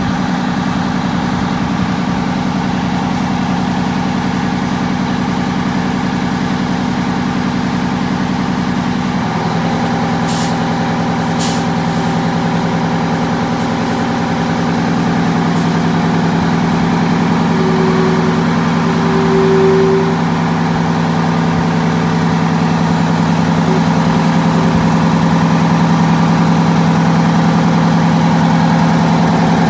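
Detroit Diesel 8V92TA two-stroke V8 diesel of a Bluebird Wanderlodge running at low speed as the bus pulls slowly forward, the engine note changing about nine seconds in. A few short hisses come soon after.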